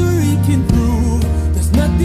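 Background music: a melody over sustained chords and a steady bass.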